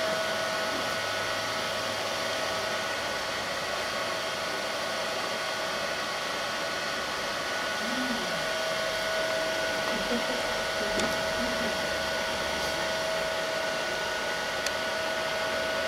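Steady fan whir from the running wide-format inkjet printer, with a faint steady whine riding on it.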